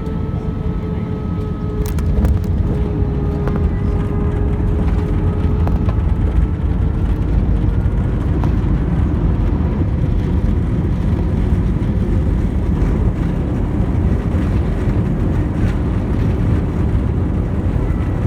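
Airbus A320 cabin noise on landing: a steady low rumble with a faint engine whine. About two seconds in, a few knocks sound and the rumble grows louder, then holds.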